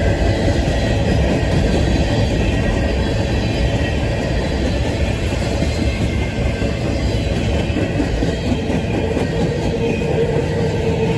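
A CSX manifest freight train's cars rolling past, with a steady rumble of steel wheels on the rails.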